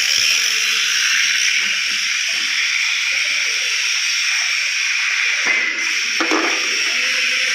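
Electric welding arc hissing and crackling steadily, with a short knock about five and a half seconds in.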